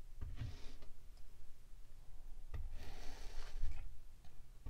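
Metal meat mallet pressed down into cubed kinetic sand, twice: each time a soft thud with a crunchy, crumbling hiss as the cut sand cubes collapse, the second one about halfway through starting with a sharp click.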